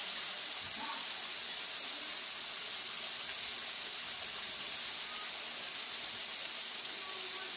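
Flour-dredged shrimp frying in a pan of hot oil: a steady sizzle.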